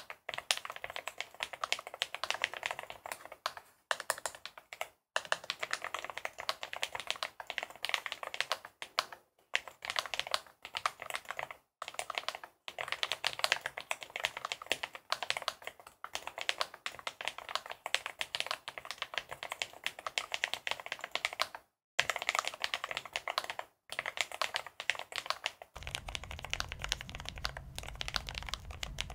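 Continuous fast typing on a Lofree Edge low-profile, gasket-mounted mechanical keyboard with Kailh POM 2.0 switches and stock PBT keycaps: a dense stream of soft key clicks, broken by a few brief pauses. A low hum joins near the end.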